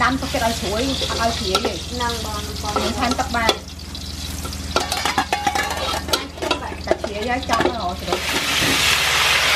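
Stir-frying sea crabs in a large wok: a spatula clicks and scrapes against the pan while oil sizzles. The sizzle swells into a loud, steady hiss over the last second or so, over a steady low hum.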